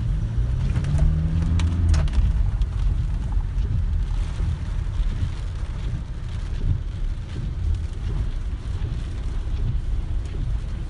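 Inside a car driving through a heavy rainstorm: a constant low rumble of wind and road noise with rain hiss on the windscreen. In the first two seconds a low hum rises slightly in pitch, and a few sharp taps follow soon after.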